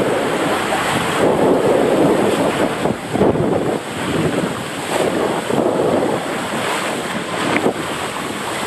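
Water rushing and splashing around a rider sliding feet-first down a water slide flume, a steady loud rush with no pauses.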